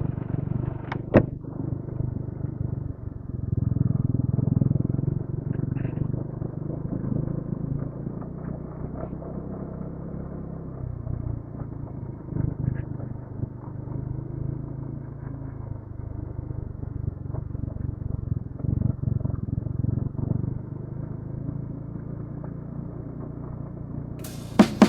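Motorcycle engine running on a downhill mountain road, heard from the rider's position as a steady, uneven low rumble mixed with road and wind noise, with a sharp click about a second in.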